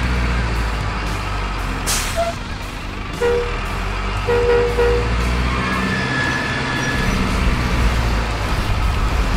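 Heavy diesel truck engine sound running steadily, with a sharp air-brake-like hiss about two seconds in and two short horn toots around three and four and a half seconds.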